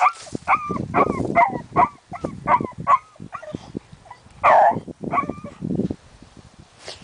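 A dog yipping and barking: a quick run of short, high calls, about two a second, then a louder bark about four and a half seconds in and a few more yips just after.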